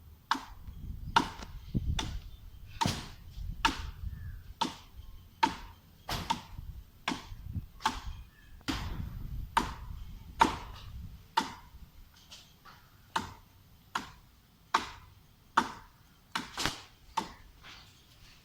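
A blade chopping into a coconut palm trunk: about twenty sharp, evenly paced strikes, a little over one a second, with a low rumble under the first half.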